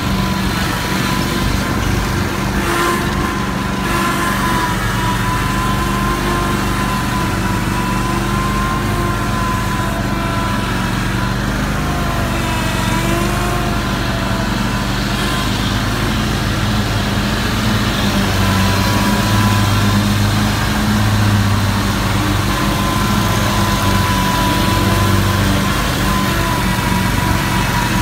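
Scag Cheetah zero-turn mower engine running steadily while mowing, with a wavering high whine over the engine note.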